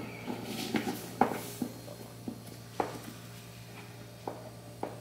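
Scattered light taps and clicks of fingers pressing dough down onto a metal baking tray of empada tins, over a steady low hum.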